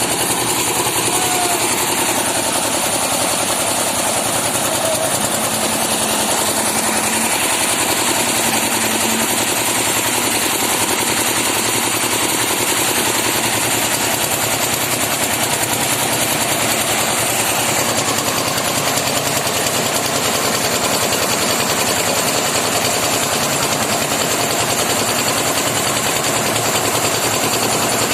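Engine-driven concrete-slab site machinery running steadily with a loud, fast, even chatter.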